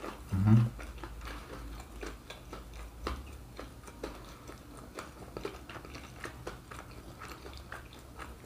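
Close-miked chewing: mouths working on food, with many small wet clicks and soft crunches. A brief voice murmur about half a second in is the loudest sound.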